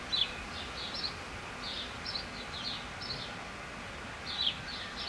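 Small songbird twittering: quick, high chirps in irregular clusters, over a steady outdoor background hiss.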